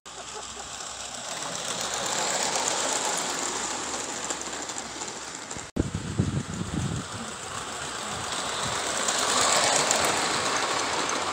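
Gauge 1 garden-scale model train running past on the track: a dense rattle of wheels on the rails with a rushing hiss. It swells as the train comes close, drops out at a cut about halfway, then returns with a low rumble and builds again as the coaches pass near the end.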